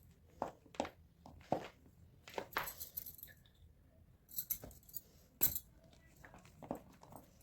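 Heart- and rectangle-shaped blocks of gym chalk being crushed, an irregular series of dry crunches and crumbling with a sharp crack about five and a half seconds in.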